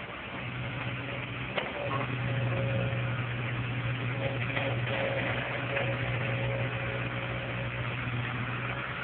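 Komatsu hydraulic excavator's diesel engine running steadily while the bucket digs out a tree stump, growing louder about two seconds in. A single sharp knock comes just before that.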